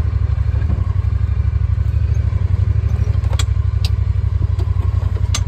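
Side-by-side UTV engine running at low speed as the vehicle creeps along a dirt trail, a steady low throb. A few sharp clicks sound over it, around three and a half seconds in and again near the end.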